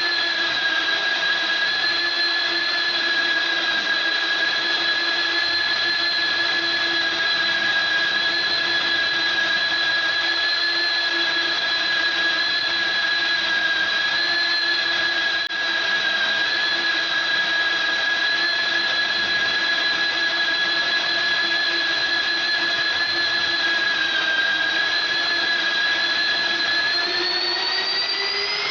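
Magnetic drill (Promotech PRO-36 Auto) motor running with a steady whine, as when boring with an annular cutter under load. Near the end the pitch rises as the motor speeds up, as the load comes off.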